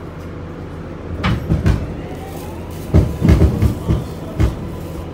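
New York City Subway 7 train running on elevated track, heard from inside the car: a steady low hum with a faint motor whine that rises and then holds. Two clusters of heavy clacks from the wheels over rail joints come about a second in and again from about three seconds in.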